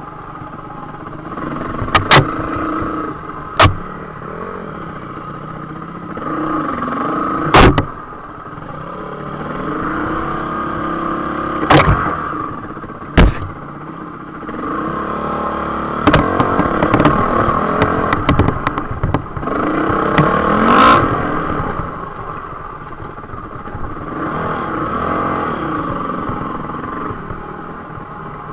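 Dirt bike engine being ridden over rough trail, its pitch rising and falling as the throttle opens and closes. Several sharp knocks, the loudest sounds here, come as the bike hits bumps.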